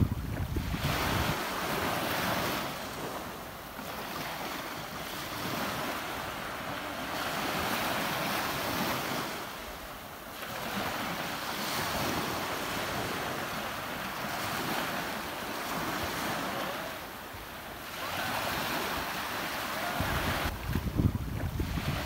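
Ocean surf rushing and washing, the noise swelling and fading with each wave about every six or seven seconds. A low rumble of wind on the microphone comes at the start and again near the end.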